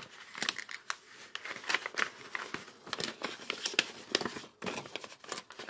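Paper cash envelope rustling and crinkling as fingers open and stuff it, a quick, irregular run of small crackles.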